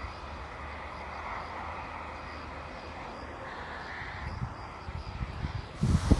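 Low rumble of a train running away along the track, under a steady outdoor noise. Near the end a louder gusty rumble of wind and an approaching train comes in suddenly.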